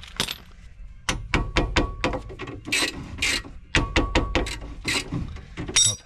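A wrench working a front control-arm bolt loose in several bursts of rapid clicking and rattling, with short hisses in between.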